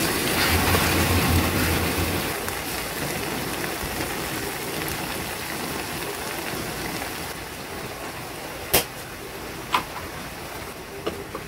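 Sayote strips sizzling and simmering in a pan, a steady sizzle that slowly dies down, with a wooden spatula stirring near the start and two sharp clicks near the end.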